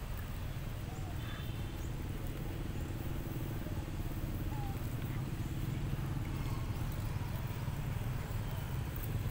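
Steady low hum of a running engine, with a faint high squeak about a second in.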